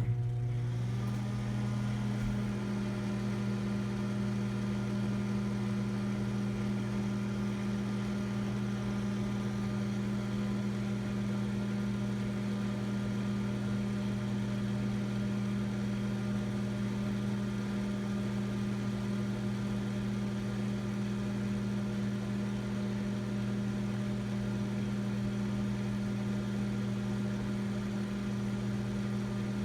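Microwave oven switched on and running, heating a whole egg in its shell: a steady, loud hum that rises slightly in pitch over the first second or two, then holds.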